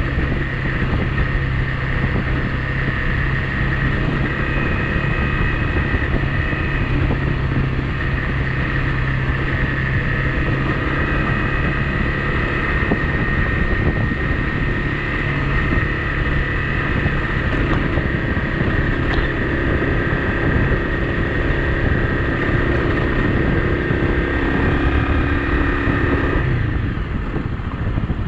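Honda CRF250 Rally's single-cylinder four-stroke engine running at a steady cruise, with wind on the microphone. Near the end the engine note changes and eases off as the throttle is released.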